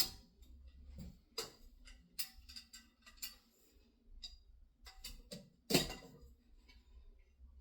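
Irregular clicks and knocks from sections of an arch backdrop frame being handled and fitted together, with a louder knock about six seconds in.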